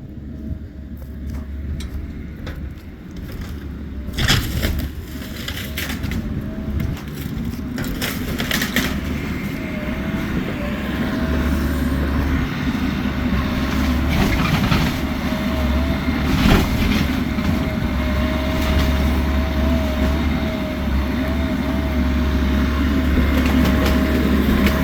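Bobcat E85 compact excavator running under load, with a wavering whine, as it crushes the manufactured home; sharp cracks and crunches of breaking wall and siding several times, the loudest about sixteen seconds in.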